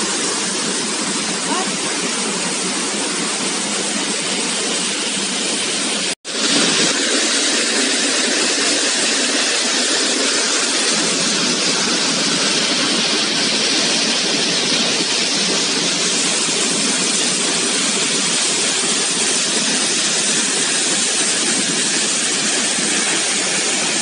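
Waterfall's water rushing steadily. About six seconds in it drops out for an instant where the recording cuts, then comes back slightly louder.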